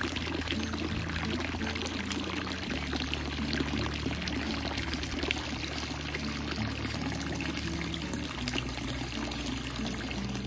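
Running water splashing steadily, an even rush dotted with small splashes.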